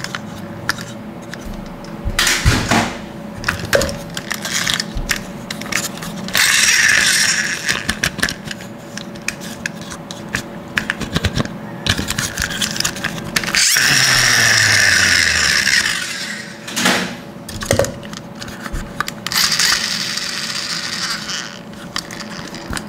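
Plastic toy monster trucks being handled: repeated plastic clicks, knocks and scraping, with three longer stretches of whirring, rasping noise as the wheels and the gear housing are worked.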